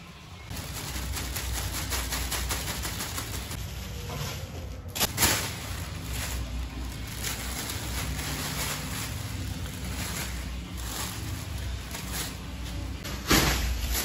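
Thin plastic bag crinkling and rustling as a kitten pounces on it and bats it about, with two louder knocks, one about five seconds in and one near the end.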